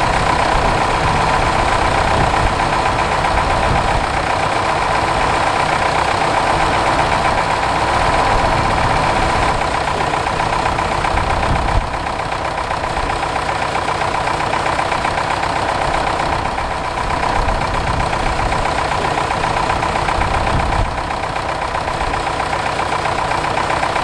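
Zetor tractor's diesel engine idling steadily, with a slight knocking clatter.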